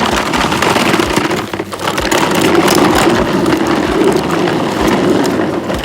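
A small motor running with a steady grinding, rattling noise over a low hum.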